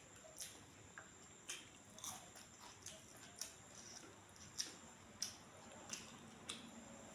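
Quiet eating sounds: a person chewing, with soft irregular mouth smacks and clicks, while her fingers mix rice and dal on a steel plate.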